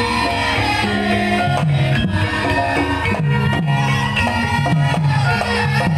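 Live Javanese gamelan music playing for a lengger mask dance. Sustained metallophone-like notes ring over a repeating low melodic pattern, with sharp hand-drum strokes from about one and a half seconds in.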